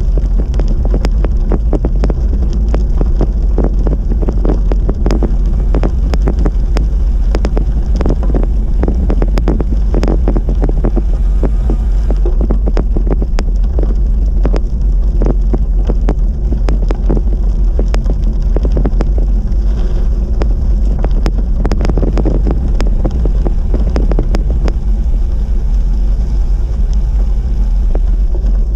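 Steady wind buffeting the microphone over the rumble of road-bike tyres rolling on the crushed-stone trail surface, with frequent sharp ticks and knocks throughout.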